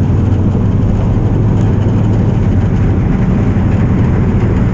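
Fishing boat's engine running steadily as the boat travels at speed, a constant low hum over the rush of the wake and wind.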